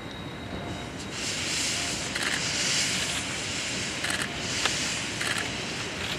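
D51 steam locomotive (D51 200) letting off steam: a loud hiss that starts about a second in and swells and falls in pulses roughly once a second, with short sharp strokes among them.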